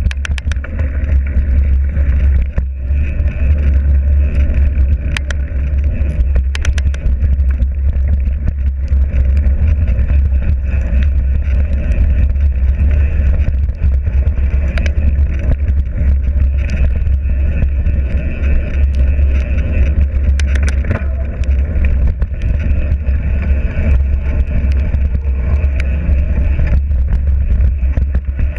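Loud, steady low rumble of a vehicle on the move, with a few scattered clicks and rattles.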